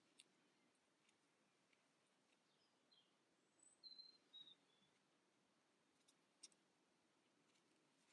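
Near silence: faint room tone with a few soft ticks, and a brief faint high chirp of short falling notes about four seconds in.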